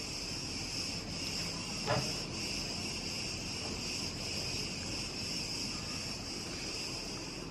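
Insects chirring in a steady, unbroken high-pitched chorus, with one faint knock about two seconds in.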